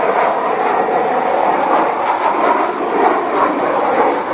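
Jet engines of an Embraer E-Jet airliner on final approach: a steady rushing drone with a faint hum in it.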